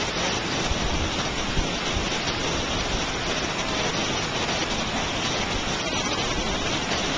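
Steady rushing noise of Yosemite Falls, the waterfall's roar with no breaks.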